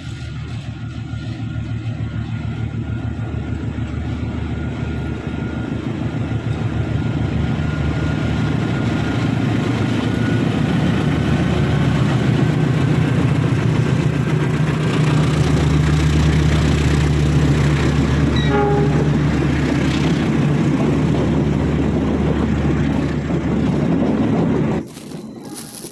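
Diesel locomotive of the Taksaka passenger train pulling out of a station, its engine hum growing louder as the train gets under way, with the rumble of the carriages rolling past. The sound cuts off suddenly near the end.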